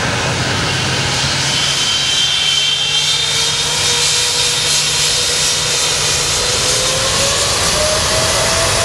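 Boeing 777-300 jet engines running at close range as the airliner rolls along the runway: a steady rush with a high whine, and a lower tone that rises in pitch about seven seconds in as the engines spool up for takeoff.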